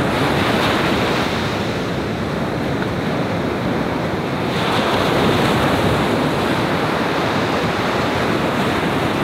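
Ocean surf breaking and washing up a sandy beach: a steady, loud rush of waves that swells a little about halfway through.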